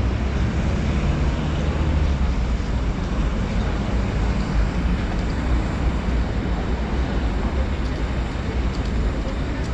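Steady city street traffic noise, with a deep engine rumble from buses and cars on the road alongside.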